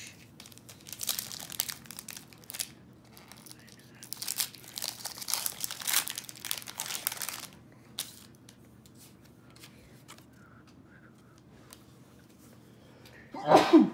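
Foil booster-pack wrapper crinkling and tearing as it is pulled open by hand, in two spells of rustling in the first half. A sneeze comes near the end.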